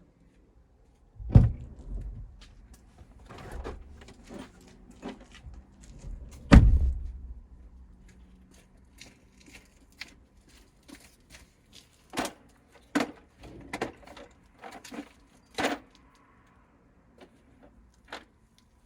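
Plastic interior trim in a pickup cab being pried and handled: two heavy thumps, then a run of sharp clicks and knocks from panel clips and hard plastic.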